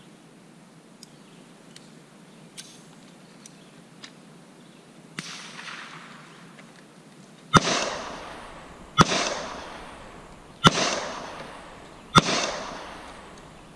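Four gunshots, evenly spaced about a second and a half apart in the second half, each followed by a long echoing tail, with a few faint clicks before them.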